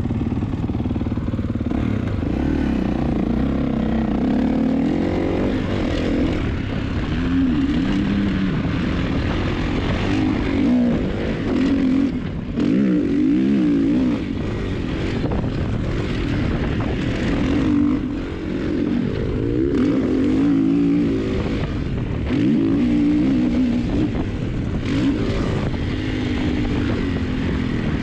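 Motocross dirt bike engine under hard riding, heard from a helmet camera: revving up and easing off again and again as the rider accelerates, shifts and rolls off the throttle. The pitch rises and falls many times, with a couple of brief drops in level around the middle.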